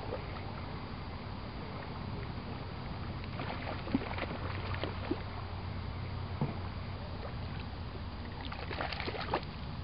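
Steady wind rumble on the microphone, with scattered short splashes and clicks as a hooked rainbow trout is reeled in to the lake's edge; a cluster of them comes near the end.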